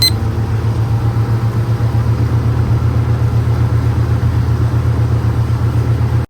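An engine running steadily with a fast, even throb, cutting off suddenly at the end.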